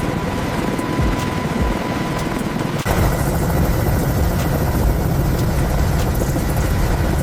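Mil Mi-2 helicopter running, its twin turboshaft engines and rotor going: a steady whine over dense rotor noise. About three seconds in the sound changes abruptly and becomes louder and heavier in the low end.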